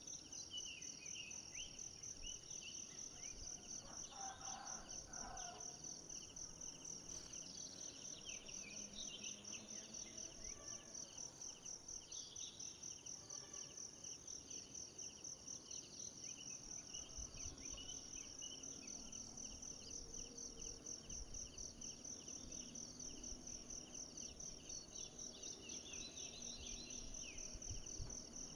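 Insects trilling steadily in a rapid, even pulse, high-pitched, with a few brief chirps and a short call about four seconds in.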